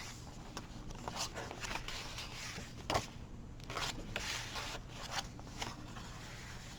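Paper pages and inserts of a handmade junk journal being turned and handled: scattered soft rustles and light taps, the sharpest about three seconds in.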